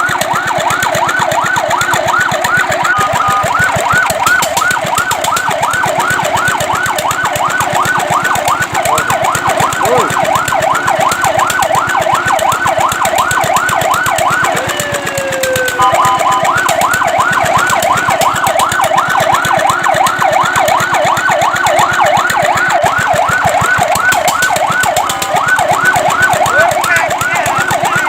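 Fire truck siren in a fast yelp, its pitch sweeping up and down several times a second. About halfway through the yelp breaks off briefly, with a falling tone, then resumes.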